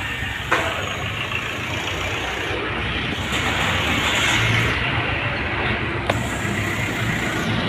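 Street traffic: vehicle engines running and passing, heavier in the middle. Two sharp knocks, about half a second in and about six seconds in.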